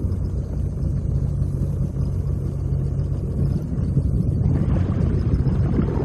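Sea-Doo personal watercraft engine running under way, a steady low rumble that grows louder about two-thirds of the way through.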